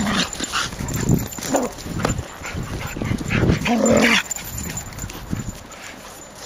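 Dog giving several short calls during play, the longest and loudest about three and a half seconds in, after which it goes quieter.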